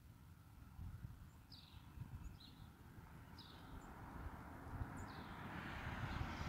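A small bird chirping outdoors, short falling notes about once a second, four or five times. A vehicle passing on the street swells into a steady tyre-and-engine hiss over the second half, becoming the loudest sound by the end.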